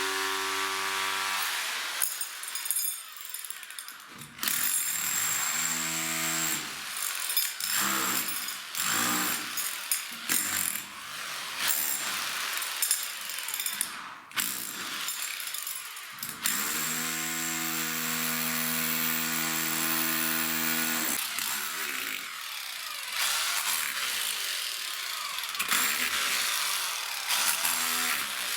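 A handheld power tool running in repeated bursts, starting and stopping several times. At times its motor gives a steady whine; at others there is harsher cutting or drilling noise.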